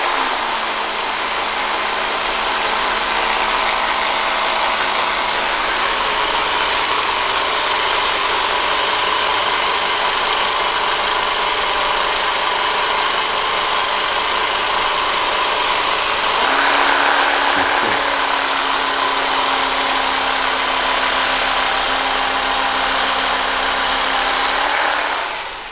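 Theragun G3PRO percussion massager running with a steady buzzing hum. Its pitch steps up about two-thirds of the way through, and it switches off just before the end.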